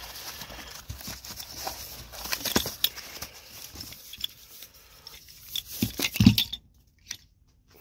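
Cardboard box and foam packaging being handled and rustled as replacement hinges are unpacked, with scattered clicks and knocks; the loudest is a thump about six seconds in.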